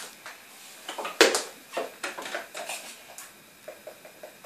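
Clicks and knocks of a metal teaspoon and a tub of baking powder being handled: one sharp knock about a second in, a few lighter knocks, then a run of quick light taps near the end.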